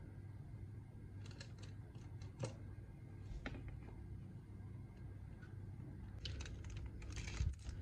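Silicone spatula scooping mousse from a ceramic bowl into a plastic piping bag set in a glass: scattered light taps and clicks against the bowl and glass, coming thicker near the end.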